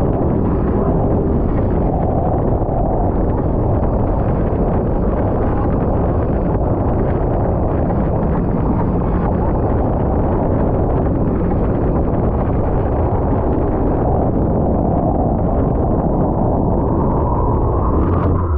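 Speedboat with three 300-horsepower motors running fast, its engine noise mixed with wind buffeting the microphone into a dense, steady rush.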